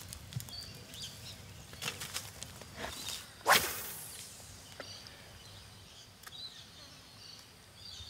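A spinning rod being cast: one sharp swish of the rod and line about three and a half seconds in, with a few light clicks before it.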